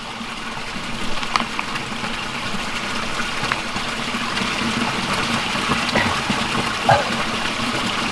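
Running water, a steady even rush that grows slightly louder, with a few light knocks.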